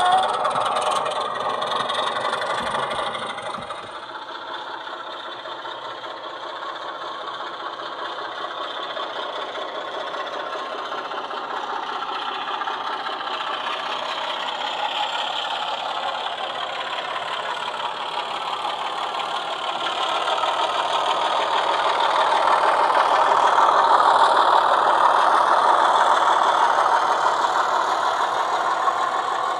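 Sound decoder in an SLW Class 24 model diesel locomotive playing a diesel engine sound through the model's speaker. The engine runs steadily and grows louder from about twenty seconds in as the locomotive draws its wagons past.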